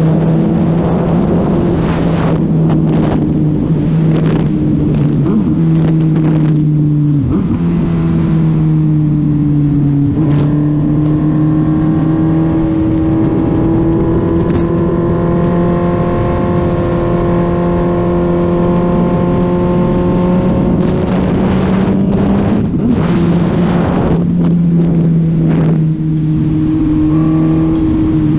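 A 2020 Suzuki Hayabusa's inline-four engine running steadily at road speed, with wind noise on the microphone. The engine note dips briefly about seven seconds in, then holds a steady pitch.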